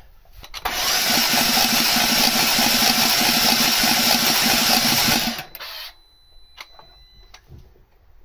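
BMW F10 M5's twin-turbo V8 spun on the starter motor with all spark plugs out, cranking freely with an even, rapid rhythm. It starts about half a second in and stops about five and a half seconds in. This is what zero compression on cylinder six sounds like; the cause is a hole in that piston.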